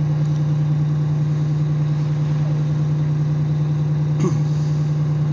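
A vehicle engine idling with a steady low hum. A brief, short rising squeak comes about four seconds in.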